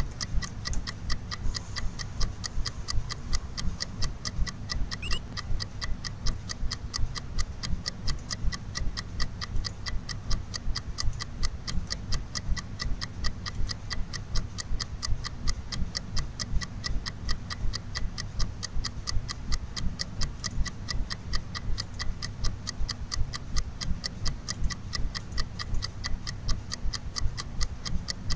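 Steady, evenly spaced ticking that keeps an unchanging rhythm, over a low hum.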